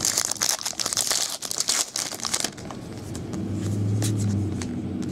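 Foil wrapper of a trading-card pack crinkling and tearing as it is opened, with the cards rustling in the hands, in quick crackly bursts that die down after about two and a half seconds. A steady low hum comes up about three seconds in.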